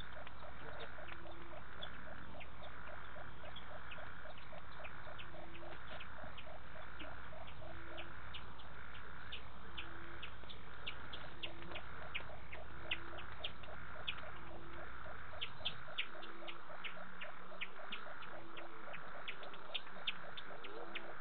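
Night chorus of frogs and insects, several callers in steady overlapping rhythms: a fast high clicking, a pulsing call about once a second, and a short low note repeating about once a second. A low steady hum underneath cuts out about three-quarters of the way through.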